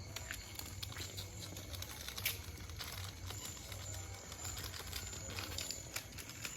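Small firework burning with a continuous crackle of little snaps, with one sharper pop about two seconds in.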